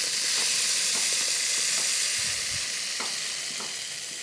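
Mustard seeds poured onto dried red chillies in a steel grinder jar: a steady hiss of falling seeds with a few faint ticks, slowly fading toward the end.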